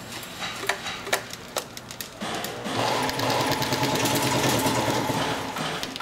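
Wiring-harness taping machine: a few sharp clicks, then about two seconds in its rotating tape head and geared conveyor start running with a fast, even clatter, wrapping non-adhesive tape around the harness.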